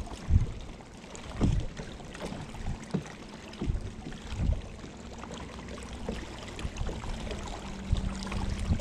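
Wind buffeting the microphone in uneven low gusts over choppy lake water. A faint steady hum comes in over the last few seconds.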